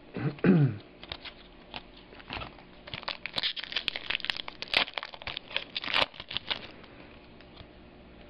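Crinkling and crackling of a trading-card pack wrapper being handled and torn, a dense run of sharp crackles that stops about two seconds before the end.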